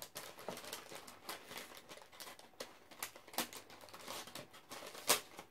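Paper packaging being handled and crinkled, a run of short irregular crackles and rustles, with one louder snap near the end.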